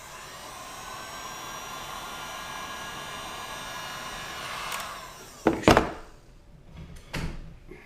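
Handheld hot-air blower running steadily with a high whine, heating a vinyl graphic to soften it as it is laid on. About five seconds in it stops and winds down, and a few sharp knocks follow, the loudest just after it stops.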